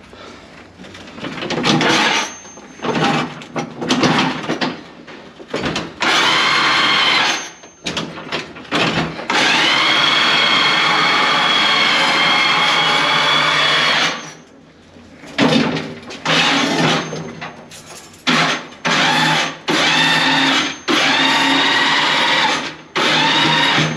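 Motor of a hydraulic stair-climbing dolly whining in repeated start-stop runs as it lifts a strapped water heater of about 300 pounds up the steps. The pitch rises as the motor spins up, and the longest run holds steady for about five seconds near the middle. Knocks sound between the runs.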